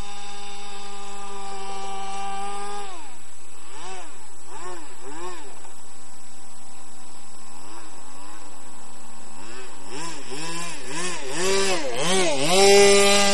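Small two-stroke model engine and propeller of an RC airboat, the 61 Cajun Gator, running at a steady high pitch. About three seconds in it drops to a lower speed, then its revs are blipped up and down over and over in quick rising-and-falling sweeps, before it holds a steady high pitch again near the end.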